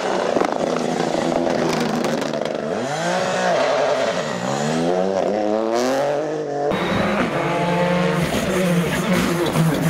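Ford Fiesta rally cars at speed on a closed stage. The engines rev up and down several times through gear changes and lifts, over tyre hiss from the wet road. About two-thirds of the way in, the sound changes abruptly to a second car, whose engine climbs and falls again.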